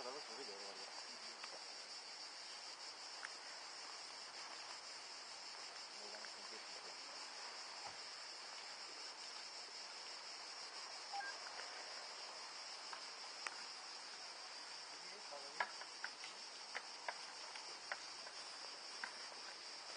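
A steady, high-pitched chorus of cicadas shrilling in the trees, with a few faint clicks and knocks in the second half.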